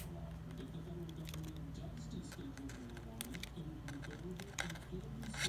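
A television news voice talking faintly in the background, with scattered light clicks and taps close by.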